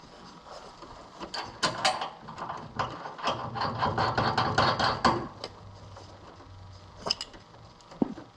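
Metal clinks, knocks and clatter of hand tools and bolt hardware as a control arm is fitted and bolted into its frame bracket, busiest in the middle with a few single clicks near the end.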